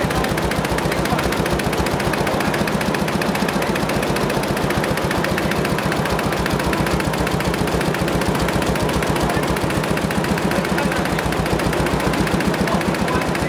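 Multi-head computerized quilting embroidery machine running, its row of needle heads stitching with a rapid, steady clatter.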